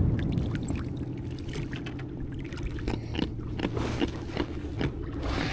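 Scattered light knocks and taps from a landed jack being handled in a small boat, over a steady low hum.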